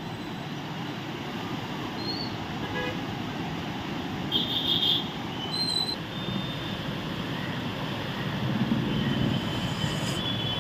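Steady outdoor traffic noise with vehicle horns tooting briefly a few times, the loudest toot about four and a half seconds in.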